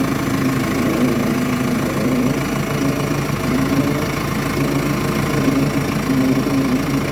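Engine idling steadily with an extraneous noise mixed into its sound, one the owner cannot identify.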